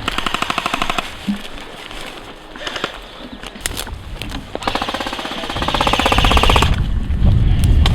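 Airsoft guns firing on full auto: a short burst of rapid clicking shots at the start, then a longer burst about four and a half seconds in. A low rumble builds underneath during the second half.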